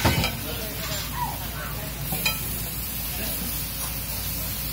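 Food sizzling steadily on a large hot iron griddle as pav buns are pressed into the frying spiced egg masala. There are a couple of sharp clicks, one right at the start and one about two seconds in.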